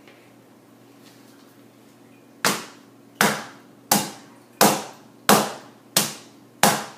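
A wooden soap loaf mold full of soap batter knocked down on the table, seven sharp evenly spaced thuds starting about two and a half seconds in, to settle the freshly poured layer and knock out air bubbles.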